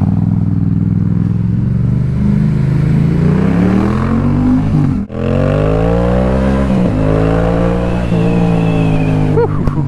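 Yamaha XSR700's parallel-twin engine running under way, its pitch rising twice as it accelerates, then holding steady. It drops out briefly about five seconds in.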